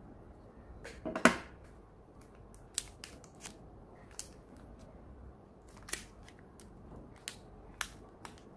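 Sharp clicks and taps from handling small hard objects: one loud click about a second in, then about a dozen lighter, irregular clicks.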